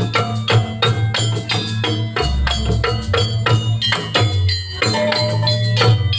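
Percussion music accompanying a pencak silat dance: a quick, busy run of sharp pitched strikes that ring briefly, with drums over a steady low tone.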